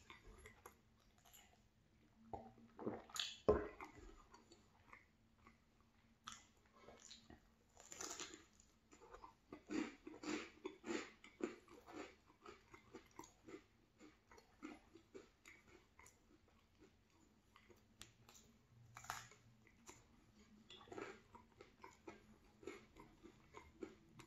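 Close-miked chewing and biting of a cheese bagel: an irregular run of soft chewing crackles and clicks, with louder bites now and then, the loudest about three seconds in.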